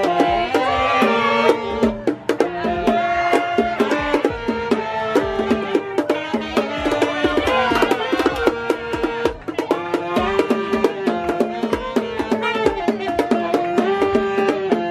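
Live saxophones playing a melody of held notes over quick, steady bongo hits.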